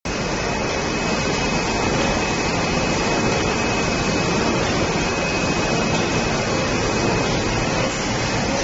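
UV ink curing dryer on an automatic screen printing line running: a steady rushing machine noise with a faint high-pitched whine held throughout.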